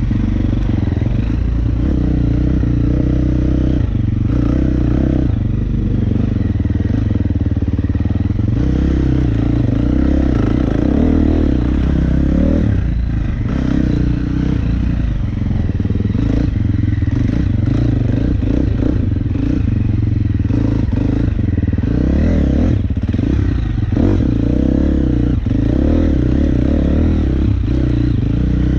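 KTM 350 SX-F's single-cylinder four-stroke engine revving up and down as the dirt bike is ridden along a rough, muddy trail, with clattering knocks from the bike over the ground.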